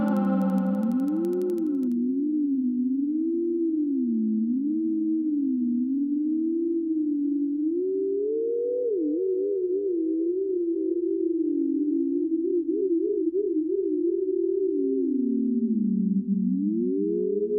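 Moog Theremini playing a pure, wavering tone that glides up and down, slow swoops at first and then faster wobbles, with echo repeats trailing behind it. A held chord rich in overtones sounds with it and cuts off about two seconds in.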